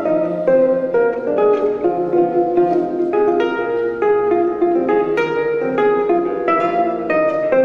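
Solo jazz guitar on an acoustic-electric guitar, plucking quick single-note lines mixed with chords, several notes a second in a bluesy improvisation.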